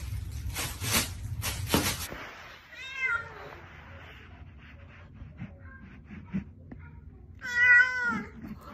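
A plastic bag crinkling under a cat for the first two seconds, then a domestic cat meowing twice: a short meow about three seconds in and a louder, longer one near the end, each rising and then falling in pitch.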